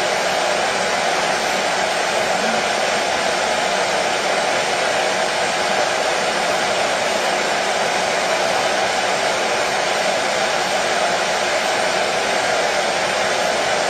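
Hair dryer running steadily: an unbroken, even rush of motor and airflow, with a faint steady hum beneath.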